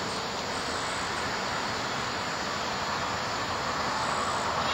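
Steady outdoor ambient noise: an even hiss with no distinct events.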